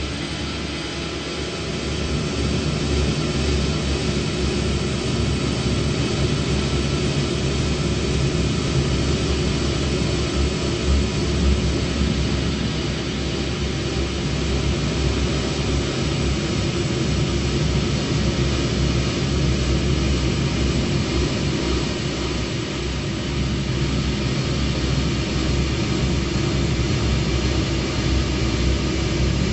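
Dark ambient drone music: a dense, steady wash of noise over deep held low tones, with no beat or voice.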